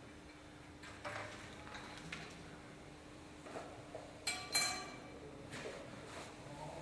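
Steel parts of a frame saw being handled: a few light knocks and scrapes, then two short ringing metal clinks in quick succession a little past halfway.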